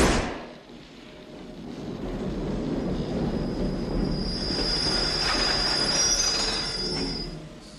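Train sound effect: the rumble of a train rolling on rails builds up, and a high, steady metal-on-metal wheel squeal joins midway, then fades away near the end.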